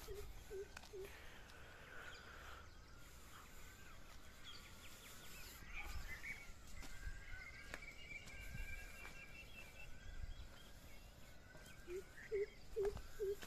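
Birds calling outdoors: thin high chirps and a fast trill of repeated notes through the middle, and a series of four short low hoots at the start and again near the end, the loudest sounds. Faint scattered knocks alongside.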